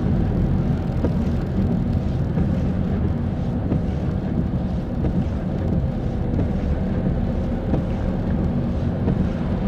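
Car driving on a motorway in the rain: steady engine and tyre noise on wet road.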